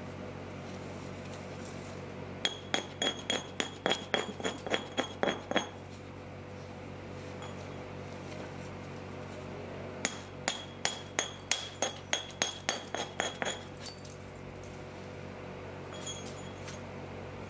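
Flint blank being knapped with light, quick taps: two runs of about a dozen taps each, roughly four a second, every tap giving a glassy, ringing chink from the flint, with one faint tap near the end.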